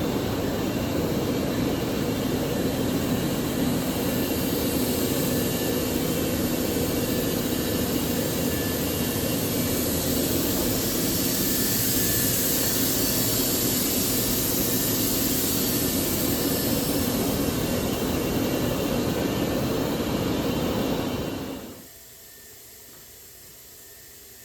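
Steady, loud machinery noise with a strong hiss, which stops suddenly about 21 seconds in and leaves only a low background hum.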